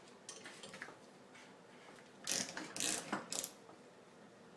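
Metal clicking and scraping of a puller being fitted onto a scooter engine part by hand: a few faint clicks, then a louder cluster of sharp clinks a little past two seconds in.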